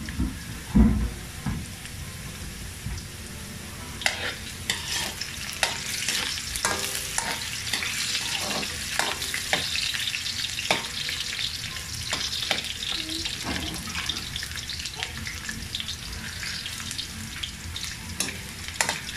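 Cubed potatoes sizzling in oil in a metal wok while a metal ladle stirs them, with clicks and scrapes of the ladle against the pan. There is a knock near the start, and the sizzling grows louder about four seconds in.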